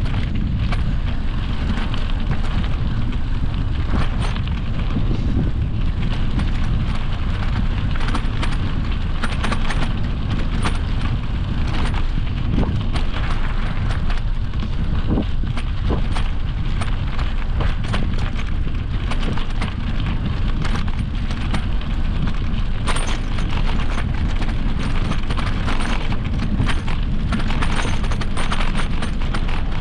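Wind buffeting the microphone over the rolling noise of an e-mountain bike's tyres on a dirt trail, with frequent short rattles and knocks from the bike jolting over bumps.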